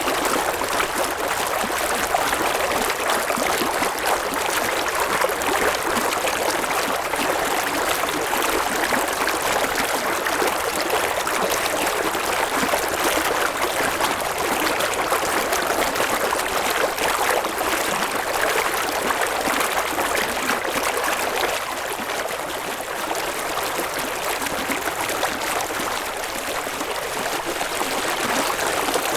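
River water flowing over rocks in a steady, even rush with babbling and trickling.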